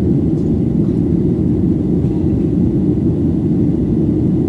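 Steady low rumble inside the cabin of a Boeing 737-800 shortly after takeoff, from its CFM56-7B jet engines and the airflow over the fuselage.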